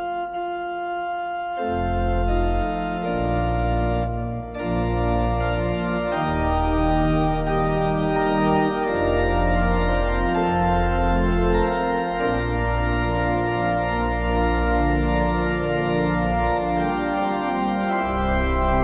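Organ music: sustained chords over held bass notes, the harmony changing every second or so. The bass notes come in about one and a half seconds in.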